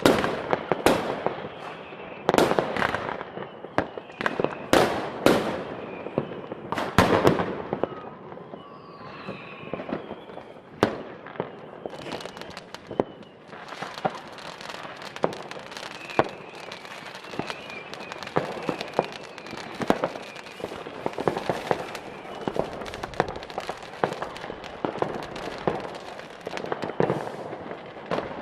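New Year's Eve fireworks: rockets and firecrackers going off in quick succession with many sharp bangs. A faint whistle comes about a third of the way in, and from about halfway the sound turns to denser, lighter popping and crackling.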